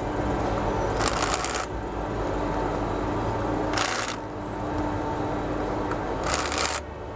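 Cordless power driver running in three short bursts, about half a second each and a couple of seconds apart, driving in the hub bolts of the kernel processor's front drive pulley.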